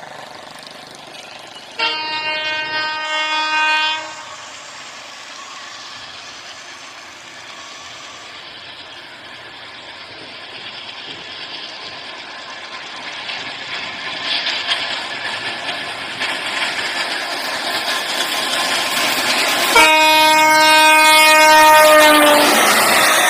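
Battery-powered toy steam train running on its plastic track, a steady running noise that grows louder as it comes close. Its electronic horn sounds twice, once about two seconds in and again near the end.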